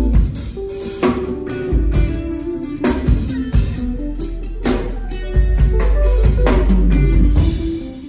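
Loud music with plucked guitar, a deep bass line and drum hits.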